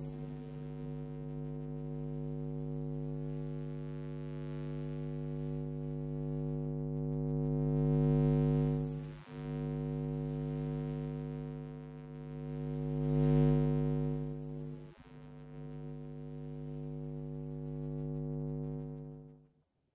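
Electromagnetic hum from a 1984 Apple //c's external power supply brick, picked up by a hand-held induction coil pickup: a steady low buzz with many overtones. It swells louder twice as the coil moves, drops out briefly twice, and cuts off just before the end.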